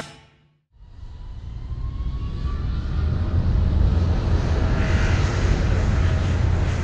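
Airliner jet engine sound effect fading in after a moment of silence and building to a steady deep rumble, with a faint whine slowly rising in pitch as it builds.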